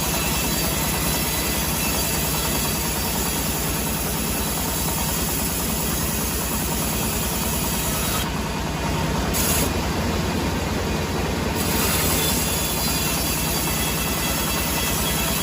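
Sawmill machinery running steadily: a loud, even mechanical noise with an engine hum underneath. The highest part of the noise thins out briefly twice, about halfway through.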